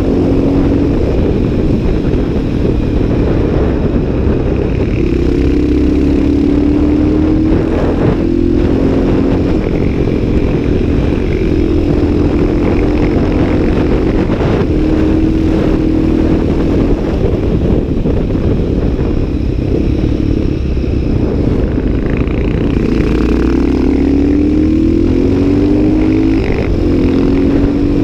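CCM 604 supermoto's single-cylinder engine under way on the road, revs climbing in short rising steps as it pulls up through the gears, once early on and again near the end, over heavy wind rumble on the microphone.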